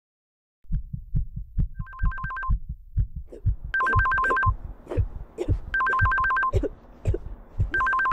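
Phone ringing: four short bursts of a two-note trill about two seconds apart. Under it run quick, regular low thumps, after about half a second of silence at the start.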